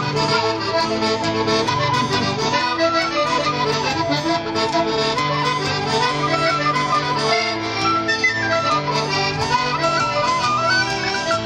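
Accordion playing an Irish traditional dance tune, a melody running up and down over repeating bass chords, amplified through a PA.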